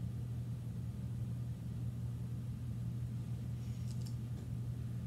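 Steady low room hum, like a ventilation or equipment fan, with a faint brief scratching of a pen writing on paper about three and a half seconds in.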